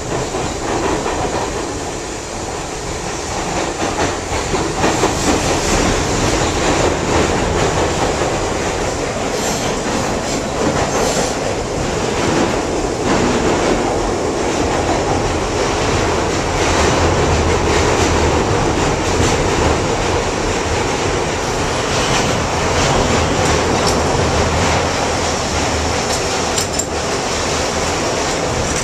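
Inside a New York City subway car on the 1 line, running through the tunnel: a steady, loud rumble of wheels on rails and traction motors, with scattered clicks of the wheels over rail joints. It gets a little louder from about four seconds in.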